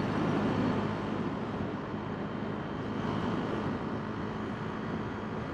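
Motorcycle engine running at a steady cruising pace while riding, with a steady rush of wind noise over the microphone.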